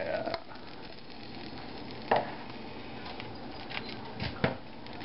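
Egg frying in a pan with a steady sizzle, broken by a few sharp clinks, the loudest near the end.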